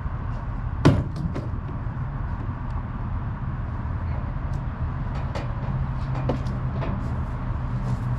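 Hand work on a jet ski's handlebar switch and its fittings: one sharp click about a second in, then scattered lighter clicks and taps, over a steady low rumble.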